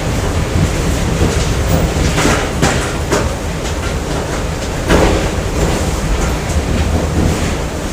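Factory machinery din: a steady low rumble with irregular clanks and clatter over it, the loudest about five seconds in.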